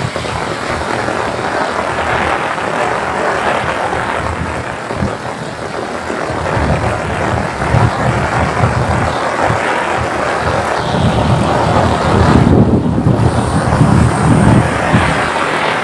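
Heavy rain pouring onto a paved road, a dense, steady hiss. A deeper, uneven rumble rises through the second half.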